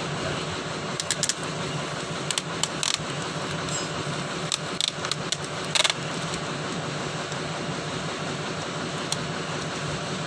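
Excavator engine running steadily, with scattered sharp metallic clinks and taps of work on the machine between about one and six seconds in.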